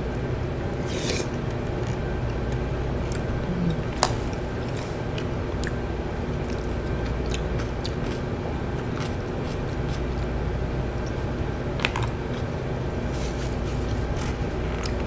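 A person eating with a metal spoon and chopsticks: scattered clicks and scrapes of utensils against a bowl and takeout containers, the sharpest about four seconds in, with soft chewing, over a steady low hum.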